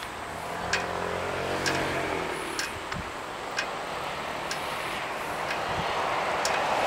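Engine noise passing with a slowly falling pitch over the first two or three seconds, over a steady outdoor noise bed with light clicks about once a second; a broader engine roar builds toward the end.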